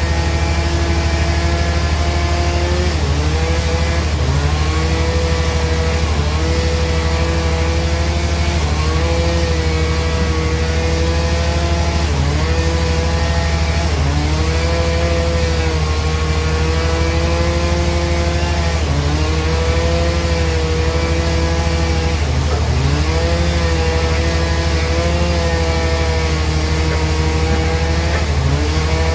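Sawmill band saw running through a log: a steady deep hum with a whining tone above it that dips in pitch and recovers every two to three seconds.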